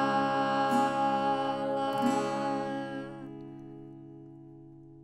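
The song's closing music: a sustained final chord that holds, then fades away from about three seconds in, leaving low tones dying out.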